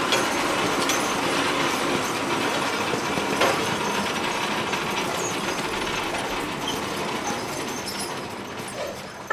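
Weighted pulling sled dragged over the dirt track by a team of draft horses: a steady rattling, scraping rumble that fades near the end.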